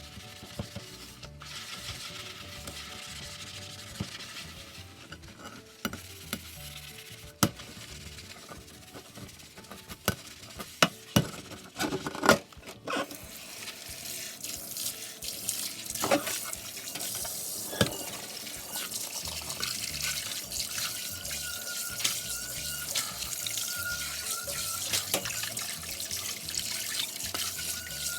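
Tap water running into a kitchen sink during washing up, with several sharp clinks of dishes about ten to thirteen seconds in.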